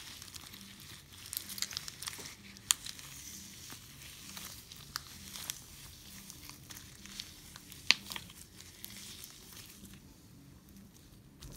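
Slime with crumbled floral foam mixed in, squeezed and stretched by hand, giving irregular crunchy crackling with a few sharp snaps, the loudest about eight seconds in. It quiets down near the end.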